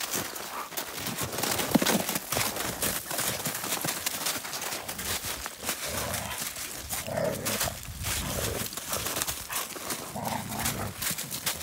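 Two dogs play-fighting in crusted snow: paws scuffling and crunching through the snow, with low play growls coming in repeatedly from about six seconds in.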